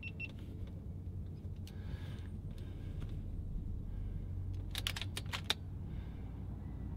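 Light mechanical clicks from handling an FX Impact MKII air rifle while readying a shot: a few faint clicks about two seconds in, then a quick run of about six sharp clicks around five seconds in, over a low steady rumble.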